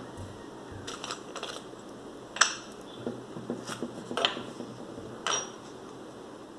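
Handling clicks and taps of a plastic 35 mm film canister and the Fomapan 100 film cassette taken out of it, with the film leader drawn out of the cassette. Several short, sharp clicks, the loudest about two and a half seconds in.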